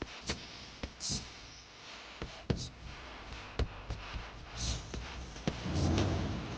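Irregular clicks and knocks of metal parts and tools being handled at a workbench, with short scraping hisses and a brief low rumble about five and a half seconds in.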